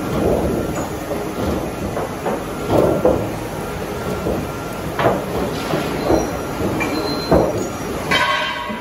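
Trapezoidal roofing-sheet roll forming machine running, its roller stations pressing ribs into a coated steel sheet: a steady mechanical rumble with irregular metallic knocks and rattles, and a short squeal near the end.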